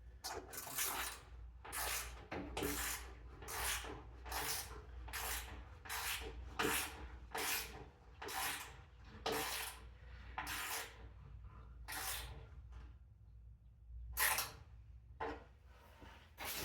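Hand ratchet wrench swung back and forth to run down and tighten 10 mm bolts, a short clicking stroke about every three-quarters of a second. The strokes stop about 13 seconds in, then a few more follow near the end.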